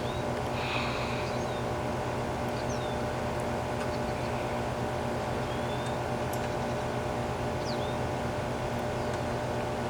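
Steady mechanical hum with several constant tones, unchanging throughout, with brief high bird chirps scattered over it.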